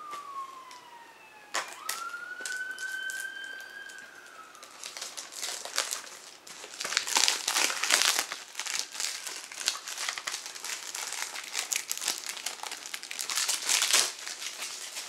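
An emergency-vehicle siren wailing, its pitch gliding down and then back up before fading about four seconds in. Then the plastic shrink-wrap on a CD case crinkling and tearing as it is unwrapped, loudest about eight seconds in and again near the end.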